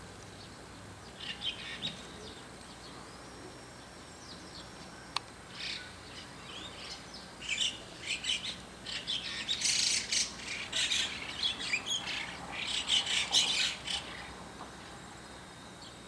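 White-cheeked starlings calling noisily. A few short calls come about a second in, then a dense run of chattering calls builds from about the middle and is loudest near the end before stopping about two seconds before the close.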